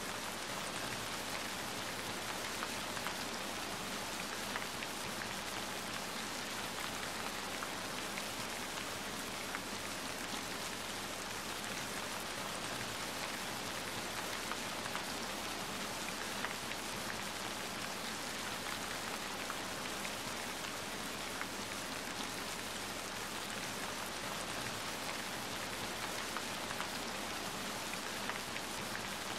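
Steady rain falling on hard surfaces, with many small drop ticks in an even hiss.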